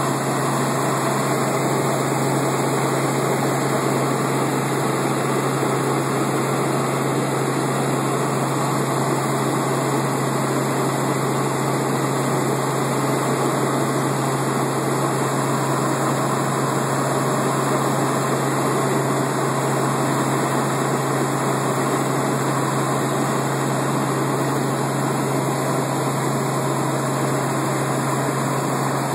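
Helicopter engine and rotor noise in flight: a loud, steady drone with a constant low hum underneath.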